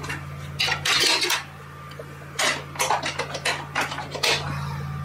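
An irregular series of short clattering knocks and clinks, like hard objects being handled, over a steady low hum.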